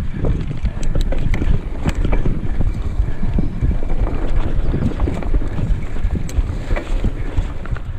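Mountain bike rolling fast over a rough dirt singletrack: a steady low rumble of tyres and wind on the microphone, with frequent sharp clicks and rattles from the bike as it jolts over bumps.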